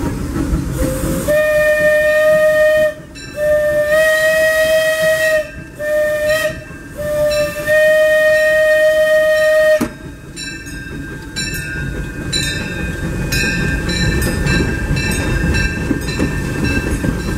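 Disneyland Railroad steam locomotive's whistle blowing a series of about five blasts, mostly long with a couple of short ones between, followed from about ten seconds in by the train's wheels clattering over the rail joints.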